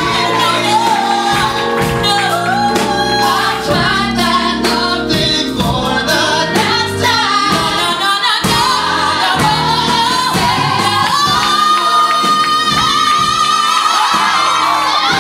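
Live soulful R&B ballad sung by several voices in harmony over a band of keyboard and electric guitar. A long high note is held through the last few seconds.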